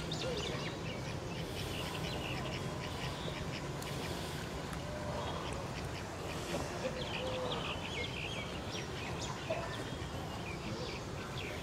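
Birds chirping and calling throughout, with several short lower calls scattered among them, over a steady low background rumble.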